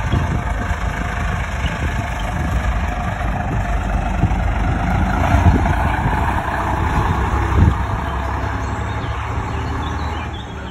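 AEC Routemaster double-decker bus's diesel engine running as the bus drives up, passes close by about halfway through, and pulls away. The engine note is loudest in the middle and drops off near the end.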